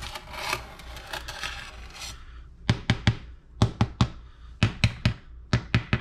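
Serrated bread knife sawing across the hard crust of a freshly baked sourdough loaf: a rasping scrape for about two seconds, then a quick run of sharp, crackling cracks. It is the sound of a crisp, robust crust.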